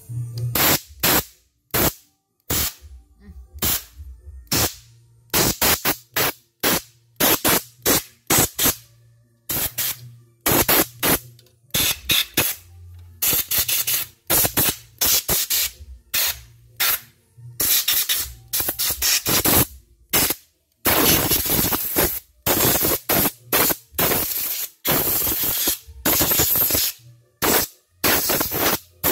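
Compressed-air blow gun let off in many short blasts of hissing air, some quick, some held for a second or more, with longer blasts in the second half. It is blowing dirt out of the opened mechanism of a dirty embroidery machine.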